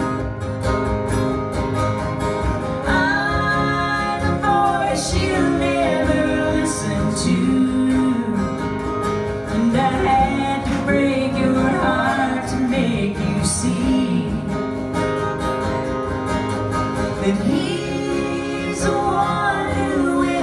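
Live country song on two acoustic guitars, strummed steadily with a melody line carried over the top.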